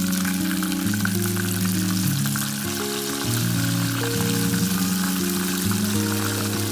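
Flour-coated blowfish pieces deep-frying in a pot of oil, a steady sizzle full of small crackles, with background music.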